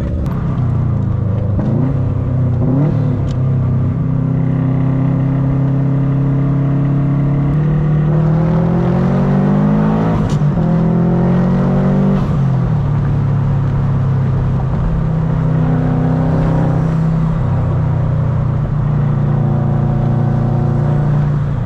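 Turbocharged Subaru Impreza flat-four engine running at a steady cruise, then revving up in rising pitch for several seconds around the middle. Its pitch drops sharply about halfway through, and the engine settles back to a steady drone.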